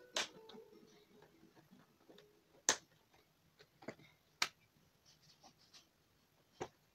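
Hard plastic parts of a Hot Wheels City Ultimate Garage playset clicking and knocking as they are handled and fitted together: about five sharp, spaced-out clicks, the loudest about two and a half seconds in.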